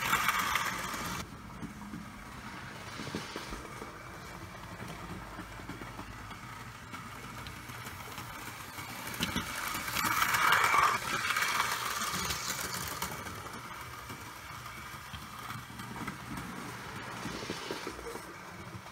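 Hornby OO gauge A4 'Bittern' model locomotive running on track, its electric motor and wheels whirring steadily. It swells louder as the engine passes close by about ten seconds in, then fades as it moves away.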